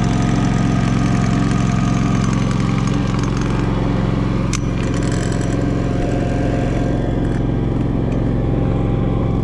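DuroMax XP16000iH inverter generator's engine running steadily under about a 3 kW load while it powers a 3-ton central air conditioner. A single sharp click sounds about halfway through.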